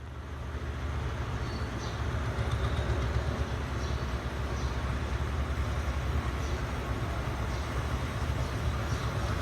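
Moving passenger train: a steady low rumble and hiss of the running carriage, with faint light rattles.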